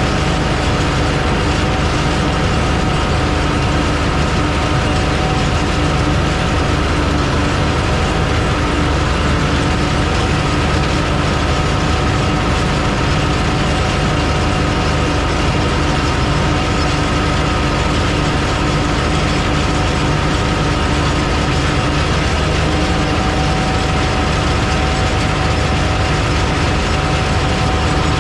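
Tractor engine running steadily while it pulls and powers a John Deere 458 round baler, with the baler's machinery turning along with it and several steady whines held throughout.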